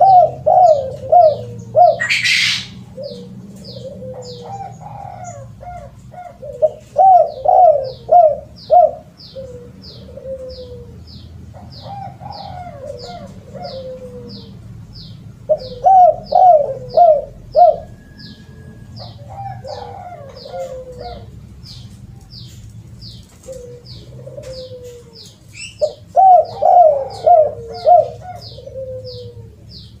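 Spotted dove (tekukur) singing its cooing song in repeated phrases of several notes, six loud phrases with softer coos between. Its song is of the rare 'kuk 2' and 'kuk 3' type, named for the number of closing 'kuk' notes. A steady high chirp repeats about twice a second underneath, and there is a brief hiss about two seconds in.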